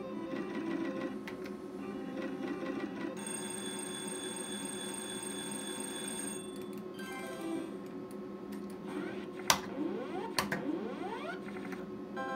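Sizzling Hot slot machine's electronic game sounds: the reels spin with a rapid ticking for about three seconds, then a win melody of steady beeping tones plays. It is followed by gamble-round beeps and rising sweeps as the win doubles, with two sharp clicks about a second apart near ten seconds in.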